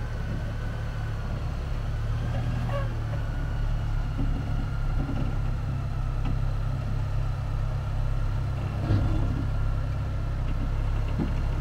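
2023 Chevrolet Colorado ZR2's 2.7-litre turbo four-cylinder running at crawling speed as the pickup eases down a slickrock descent: a steady low rumble with a faint whine above it, and a short thump about nine seconds in.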